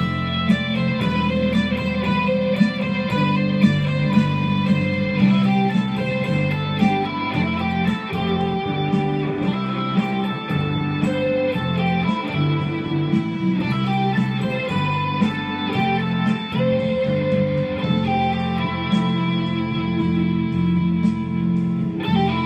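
Red Stratocaster-style electric guitar playing sustained single-note lead lines, one picked note at a time, over a steady lower accompaniment.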